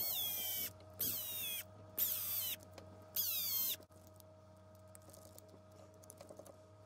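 Cordless power screwdriver driving small screws in four short runs about a second apart, each whine falling in pitch, then faint light clicks of small parts being handled.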